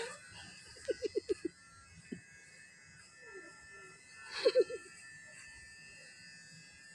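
A child's quick giggle of about five short notes about a second in, and another brief vocal sound around four and a half seconds in, over the faint steady hum of electric hair clippers.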